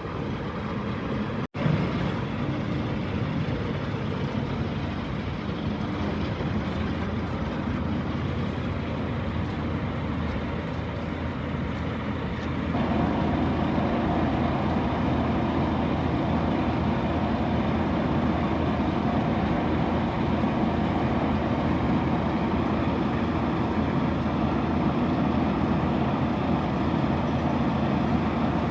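DAF CF suction excavator truck's engine and machinery running steadily. It cuts out for an instant about a second and a half in, and gets louder and fuller about thirteen seconds in, then holds.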